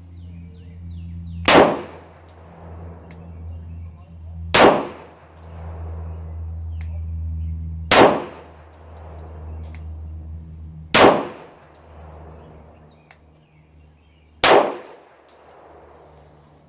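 Five shots from a Taurus PT-111 Millennium G2 9mm pistol, fired about three seconds apart, over a steady low hum. The handloads are primed with small rifle primers instead of small pistol primers, and all five go off.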